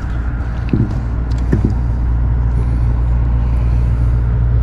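A black drum drumming on a boat deck: a steady low hum, with two short louder knocks about a second and a second and a half in.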